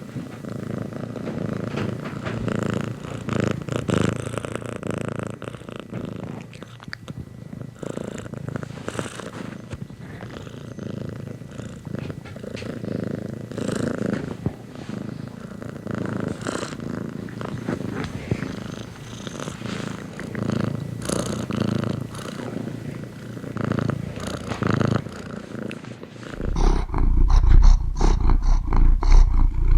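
Domestic cat purring, rising and falling with each breath. About 26 seconds in, a much louder, deeper, evenly pulsing rumble takes over.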